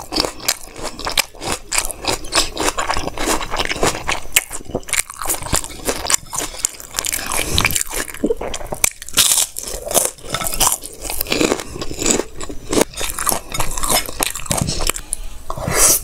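Close-miked chewing and lip-smacking of a person eating bhatura (puffed fried bread) and chickpea curry by hand: a dense, irregular run of small wet clicks and smacks, with a louder burst near the end.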